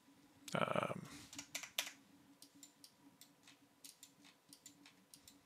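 Computer keyboard typing: a scatter of light, quick key clicks, with a short louder rush of noise about half a second in, over a faint steady hum.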